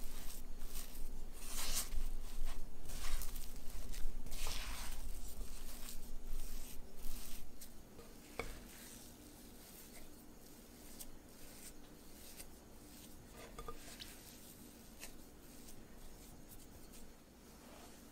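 Silicone spatula scraping and stirring crumbly lupin-flour dough in a glass bowl, in a run of repeated strokes. After about eight seconds it turns much quieter, leaving only a few faint taps and rustles.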